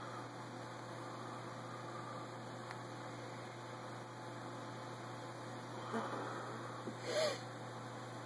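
Steady low electrical hum under a faint hiss, the quiet room background picked up by a handheld phone's microphone. Brief handling rustles come about six and seven seconds in, the second one louder.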